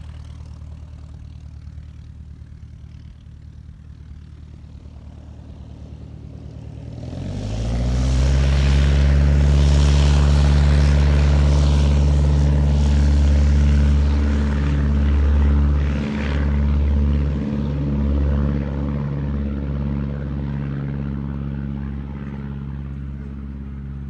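Van's RV-8 light aircraft's piston engine and propeller on a takeoff run: a steady distant drone, then about seven seconds in the engine is opened up to full power, its pitch rising and the sound growing much louder. It is loudest as the plane rolls past and then slowly fades as it heads down the runway and lifts off.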